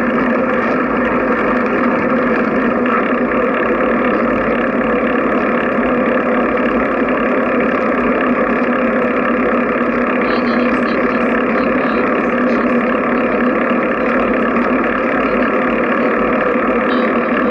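Steady rushing wind and tyre noise of a bicycle ride, picked up by a camera mounted on the moving bike.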